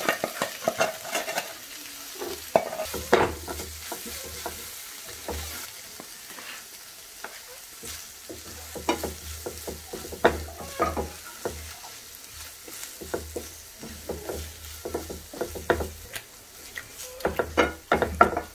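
Boiled beef liver pieces frying with onions and spices in coconut oil in a non-stick frying pan, sizzling steadily while a spatula stirs them, with frequent irregular scrapes and taps of the spatula against the pan.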